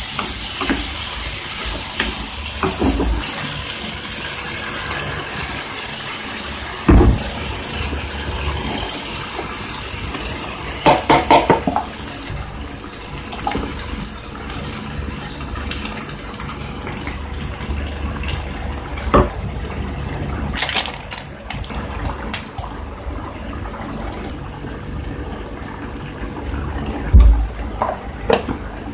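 Chicken, onion and green beans sizzling in a frying pan as a wooden spatula stirs them; partway through, liquid is poured in and the sizzle dies down. Occasional sharp knocks of a utensil against the pan.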